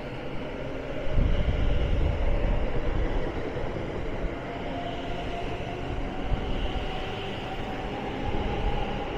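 Electric multiple unit's traction motors whining and slowly rising in pitch as the train pulls away, over a rumble of wheels on rail that swells for a couple of seconds about a second in.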